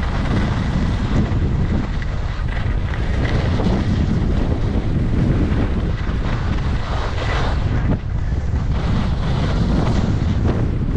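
Wind buffeting the microphone of a camera worn by a skier going downhill at speed, a steady low rumble, with swells of hiss from skis carving turns on groomed snow every few seconds.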